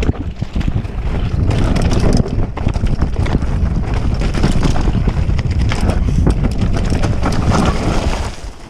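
Wind buffeting the microphone over the clatter of a downhill mountain bike rattling down a rough trail, with many sharp knocks and clicks. The noise eases off near the end.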